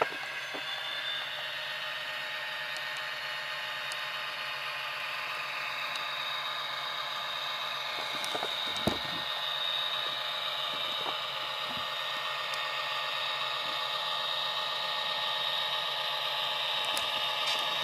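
HO-scale Proto 2000 GP60 model locomotive running along the track, its Tsunami sound decoder playing EMD 710 diesel engine sound through its small speaker, mixed with the whir of the model's motor and gears. A single light click about nine seconds in.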